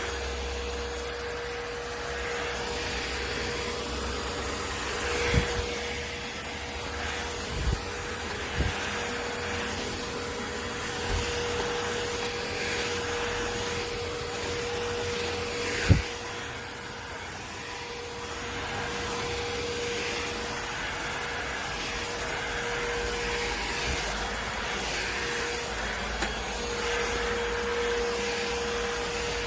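Keromee 2-in-1 cordless handheld vacuum cleaner running steadily with a constant motor whine over a rush of air, with a few knocks, the loudest about sixteen seconds in.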